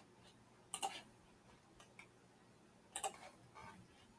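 Two faint computer mouse clicks, about a second in and again about three seconds in, each a quick press-and-release double tick.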